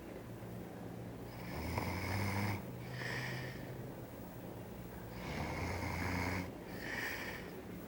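A sleeping woman snoring in slow, even breaths: twice, a long low snore followed by a shorter, higher breathy puff.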